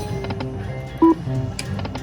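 Lightning Link Sahara Gold slot machine's bonus music and sound effects: a plucked-string tune with a run of quick ticks, and a short loud tone about a second in.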